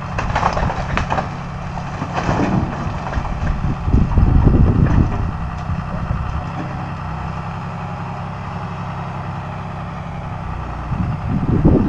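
A vehicle engine running steadily under load as it pulls on a wooden building to drag it apart. It gets louder about four seconds in and again near the end.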